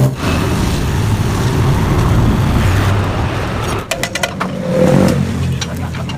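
Yamaha RX-King's two-stroke single-cylinder engine running and being revved through its exhaust, the revs swelling about five seconds in.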